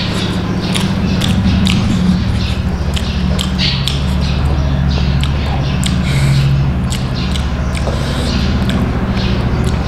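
Close-miked eating sounds of a person chewing biryani rice, heard as irregular wet clicks and smacks several times a second, along with fingers squeezing and mixing the rice. A steady low hum runs underneath.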